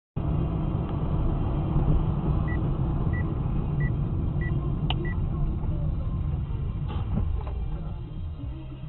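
Steady low rumble of a car on the move, with five short electronic beeps about two-thirds of a second apart midway and two sharp knocks about seven seconds in.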